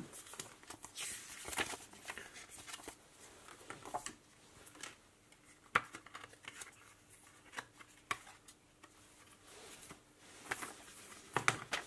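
Paper leaflets and a thin cardboard sleeve being shuffled and turned over by hand on a table: scattered soft rustles and light taps, with one sharper tap about six seconds in.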